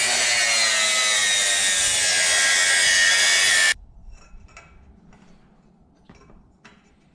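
Abrasive chop saw cutting through a metal exhaust header pipe, a loud grinding whine whose pitch sinks slowly as the wheel bites; it stops abruptly a little before four seconds in. After that, only faint clicks and taps as the cut pipe is handled and fitted to the minibike frame.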